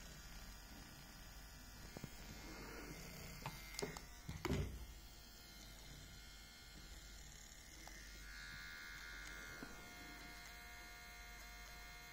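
Small electric motor of a battery-powered camera skater dolly whirring steadily as it drives the wheels, with a few handling knocks about four seconds in and a brief higher whine about eight seconds in.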